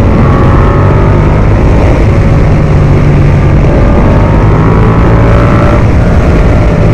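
Ducati Multistrada V4 Pikes Peak's V4 engine running under way, its pitch climbing slowly and then settling again near the end, over a steady rush of wind noise on the camera microphone.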